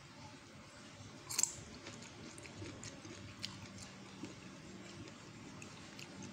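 Faint chewing of crisp stir-fried green beans, with small crunching clicks, and one sharper click about a second and a half in.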